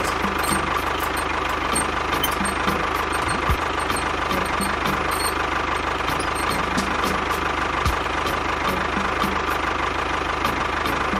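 Small motor of a toy tractor running steadily under load as it tows on a chain, a constant engine-like drone with a steady whine.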